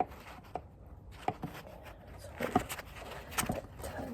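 A few sparse, light clicks and knocks as a tool is worked against a stripped Allen screw head that it cannot grip properly.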